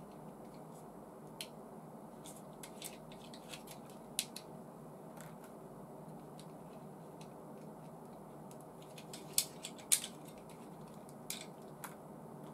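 Small plastic model-kit parts clicking and tapping as they are handled and pressed together, in scattered single clicks, the two loudest about nine and ten seconds in, over a steady low room hum.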